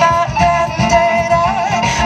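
Live jazz band playing: violin, bass guitar and drums under a held melody line with vibrato, over a steady beat.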